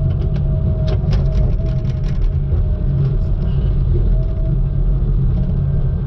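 Diesel engine and hydraulics of a knuckleboom log loader running steadily, heard from inside the cab as the grapple picks up logs. A quick run of light knocks in the first couple of seconds.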